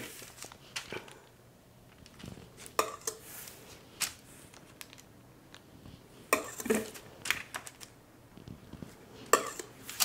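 Metal offset spatula clicking and scraping against a parchment-lined metal sheet pan in short, scattered strokes a second or two apart, as it swipes soft meringue up the sides of a pavlova shell.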